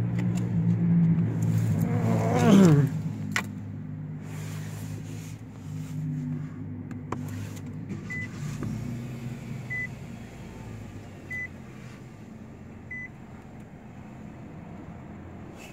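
A Nissan car's cabin warning chime beeping four times, evenly about a second and a half apart. Before it there is a louder low hum that ends in a quick falling sweep, followed by a few clicks from handling inside the car.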